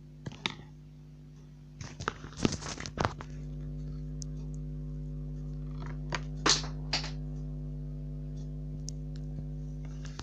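Scattered short crackles and clicks, a cluster about two seconds in and a louder pair near the middle, over a steady low electrical hum that gets louder about three seconds in.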